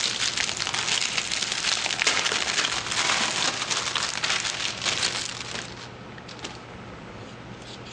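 Packaging crinkling and crackling as an iPad case is handled out of its wrapping. It goes on for about five and a half seconds, then dies down.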